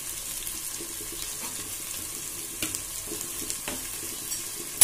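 Sliced onions frying in hot oil in a pot: a steady sizzle with scattered small crackles, and one sharp crack near the end.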